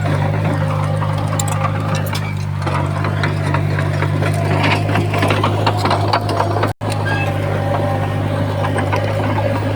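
Heavy diesel engine of earthmoving machinery running steadily, with clanking and rattling over it. The sound cuts out for an instant near the end.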